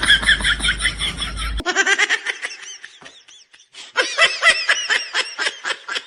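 A person laughing in quick, repeated bursts. The laughter cuts off abruptly about one and a half seconds in and goes on more faintly. A second strong fit of laughing starts about four seconds in.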